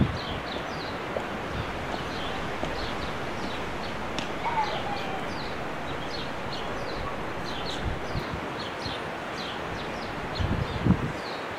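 Small birds chirping, many short quick notes over and over, over a steady outdoor rush of wind and leaves, with a few low thumps near the end.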